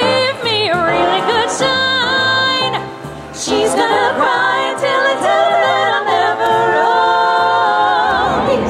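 A female vocal trio singing in harmony into microphones, amplified through a stage PA over backing music with a repeating bass line. The singing drops back briefly about three seconds in, then swells again.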